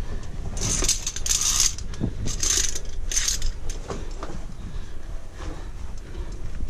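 Via ferrata carabiners sliding and clinking along a steel safety cable: a few short metallic scraping runs in the first three and a half seconds, then quieter knocks.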